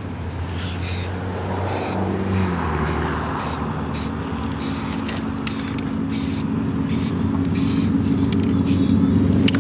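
A motor vehicle engine running steadily; its pitch climbs about two to three seconds in and then holds. Repeated short hissing bursts sound over it.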